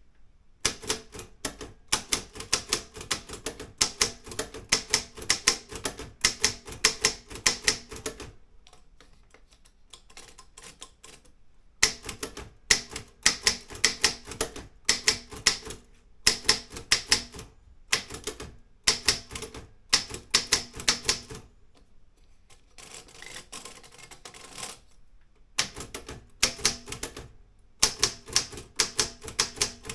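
Olympia M8 typewriter being typed on: rapid runs of key strikes with the typebars hitting the platen, broken by a few pauses of a second or more, the longest about a third of the way in.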